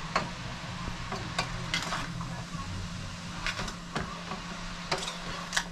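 Sliced carrots, sweet peppers and other vegetables sizzling in a frying pan while a spoon stirs them, with scattered clicks and scrapes of the spoon against the pan.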